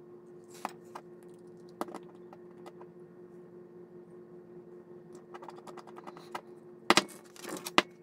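Light clicks and taps of hard plastic model-kit parts being handled and pressed together, a few scattered at first and then a quick cluster of sharper clicks near the end, over a steady low hum.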